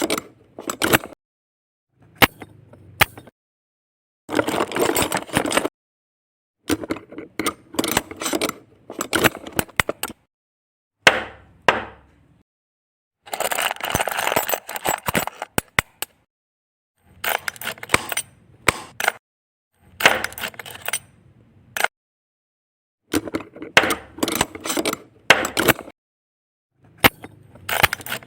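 Small plastic building bricks clicking and clattering in short bursts of one to two seconds, about a dozen of them, each cut off into complete silence: a dubbed-in sound effect of bricks being handled and snapped together.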